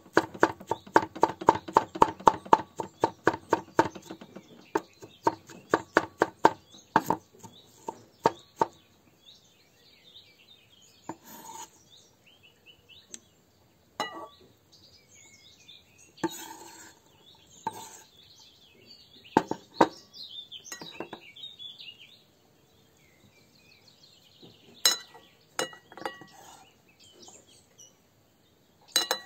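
Kitchen knife rapidly chopping zucchini flesh on a wooden cutting board, about five strokes a second at first, slowing and stopping about eight seconds in. After that come scattered knocks, and clinks of the knife against a glass bowl, with birds chirping faintly.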